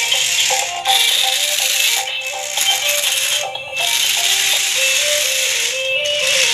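Toy remote-control monster truck driving on a tiled floor: its electric motors whir and its plastic wheels rattle, cutting out briefly twice as it stops and changes direction. A melody plays alongside.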